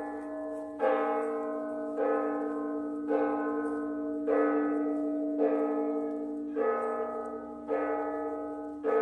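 Church bells ringing, struck about once a second, each stroke ringing on into the next.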